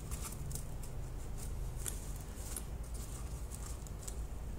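Light rustling and scattered soft ticks of hands handling crocheted yarn pieces and marker needles, over a low steady hum.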